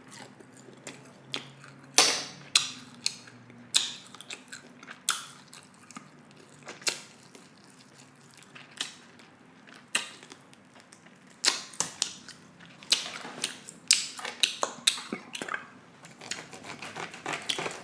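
A person chewing food close to the microphone: irregular wet clicks and smacks of the mouth, coming thicker in the last few seconds.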